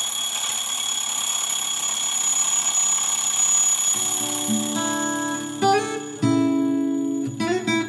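An alarm clock ringing with a steady high ring that starts suddenly and fades away about five seconds in. Acoustic guitar music begins underneath it about four seconds in.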